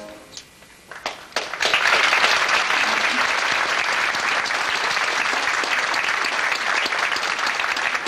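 Theatre audience applauding. A few scattered claps come first, then full applause swells in about a second and a half in and holds steady.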